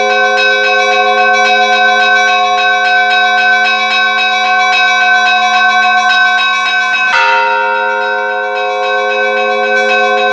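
Church bells ringing: quick, even strokes about five a second over the long sustained hum of the bells, with one heavier stroke about seven seconds in.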